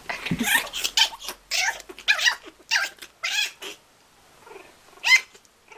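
Kitten yowling in a quick run of about eight short, high cries, then a pause and one more cry near the end, as it tussles with a puppy.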